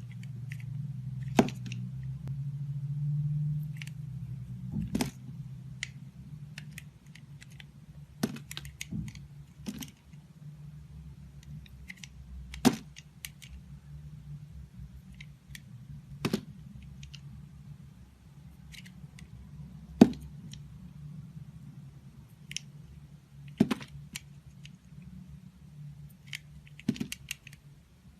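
Knife cutting into a bar of soap: a sharp crack or click every few seconds as the blade goes through, the loudest about 20 seconds in, over a low steady hum.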